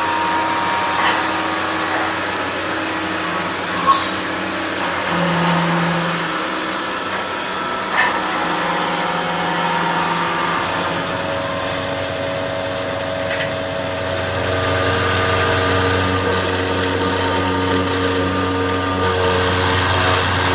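Woodworking machinery running steadily with a motor hum whose pitch shifts every few seconds, and two sharp knocks about four and eight seconds in.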